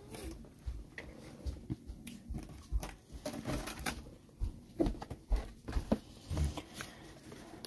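Scattered light knocks, taps and rustling as a sealed cardboard trading-card box is handled and slid across the table, busier from about three seconds in.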